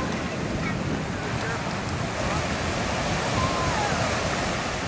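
Small sea waves washing steadily in the shallows, with wind rumbling on the microphone.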